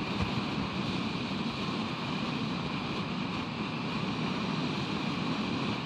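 Steady wind and ocean surf noise on an exposed nest-camera microphone, even throughout with no distinct events.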